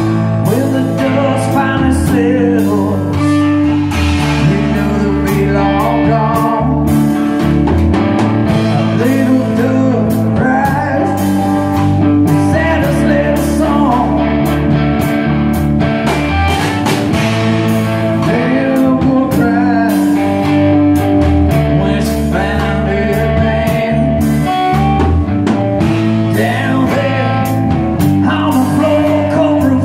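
A band practising a blues-rock song: guitar and drum kit with singing.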